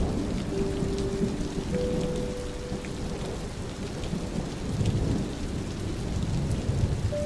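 Thunderstorm: steady rain with low rolling thunder, swelling about five seconds in and again near the end.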